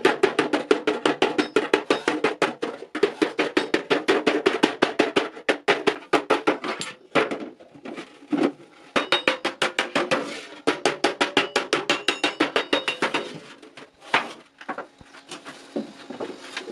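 Rapid, even striking, about eight to ten strokes a second, in runs of a few seconds with short pauses between them; each stroke rings briefly.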